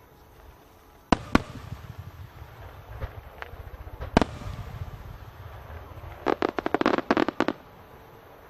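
Aerial fireworks shells bursting: two sharp bangs just after a second in, another about four seconds in, with a low rumble lingering between them, then a rapid run of about a dozen crackling bangs near the end.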